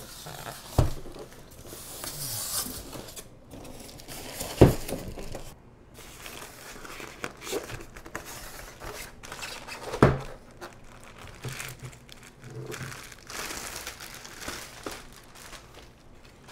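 Cardboard and plastic packaging being pulled apart by hand: irregular crinkling and rustling with a few knocks, the loudest about four and a half seconds in and again about ten seconds in.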